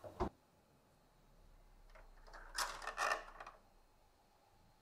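Soft handling sounds: a few brief scrapes and rustles as a pair of eyeglasses is fitted onto the face of a 3D-printed plastic statue, with a single click just after the start.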